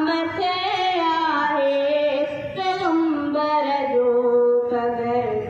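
A boy's voice singing a Sindhi naat, drawing out long held notes that slide slowly in pitch.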